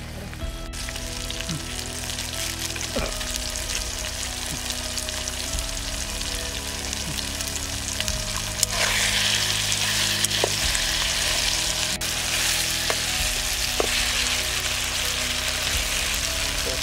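Brinjal, tomato, green chilli and curry leaves sizzling in hot oil in a steel kadai, with a ladle stirring and clicking against the pan now and then. The sizzle grows louder a little past halfway.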